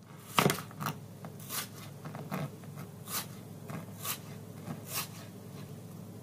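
Kitchen knife slicing and dicing an onion on a plastic cutting board: a crisp cut and tap of the blade on the board about once a second.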